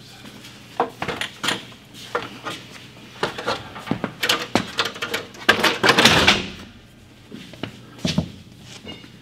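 Irregular knocks and clatter of wooden blocks and ladders being handled against a wooden wall, with a longer scraping rush about six seconds in.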